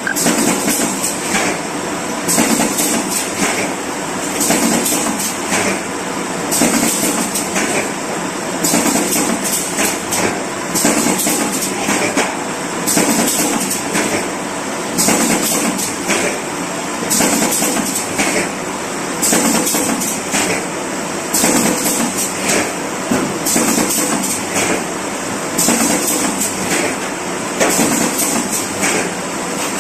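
Automatic corrugated cardboard partition assembling machine running: a steady mechanical clatter of knocks, with a hissing burst and a louder clack repeating about every two seconds as it cycles.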